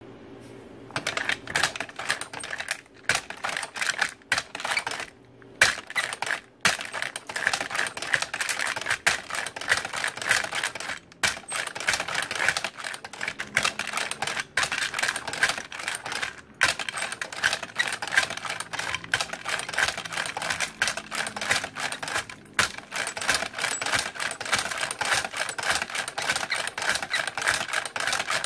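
Ammunition belt-loading machine clicking and clacking rapidly as it works rifle cartridges into metal belt links. It starts about a second in and breaks off briefly a few times.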